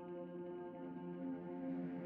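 Soft ambient music: a held chord of sustained tones that fades in and slowly grows louder.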